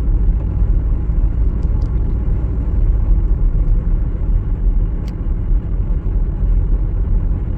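A car driving along a paved road, heard from inside the cabin: a steady low rumble of engine and tyre noise.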